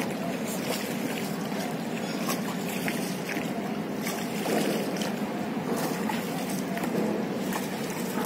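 Steady rush of wind and river water around a wooden rowboat under oar, with a few faint knocks.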